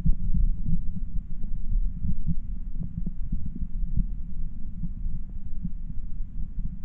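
Muffled, irregular low rumble of water moving around an underwater camera's waterproof housing, with faint scattered clicks.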